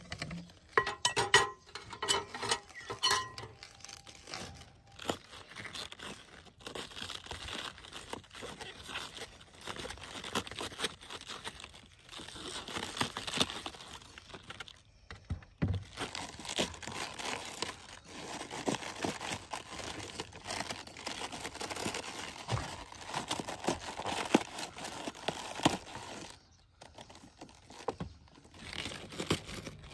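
A kitchen knife cutting into a raw head of white cabbage, the crisp leaves crunching and crackling as the core is carved out. A few sharp clicks come in the first seconds, and the cutting pauses briefly about halfway and again near the end.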